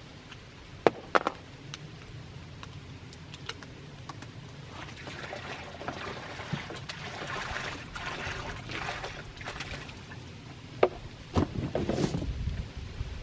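Liquid pouring and splashing into a container for about five seconds in the middle, with a few sharp clicks and knocks of handling before and after.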